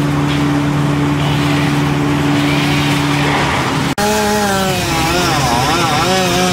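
Engines of tree-lopping machinery running. A steady engine note is cut off sharply about four seconds in, and an engine note that wavers up and down in pitch follows.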